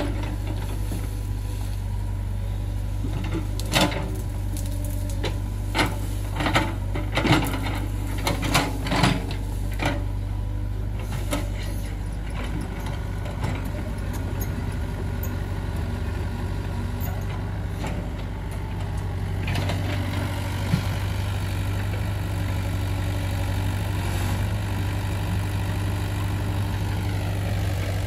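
Excavator engine running steadily, with a scatter of sharp knocks and clanks over the first ten seconds or so. The engine gets a little louder about twenty seconds in.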